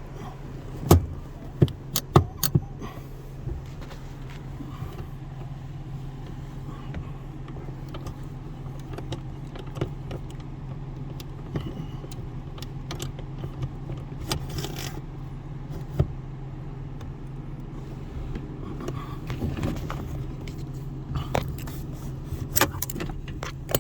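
Scattered metallic clinks and scrapes of a screwdriver being worked into a truck's dash-mounted emergency brake handle mechanism, prying to free the brake cable, over a steady low hum.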